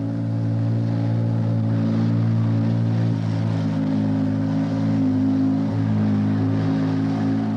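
Ford Cosworth 1.5-litre twin-turbo V6 Formula One engine idling steadily in the car, its pitch shifting slightly now and then.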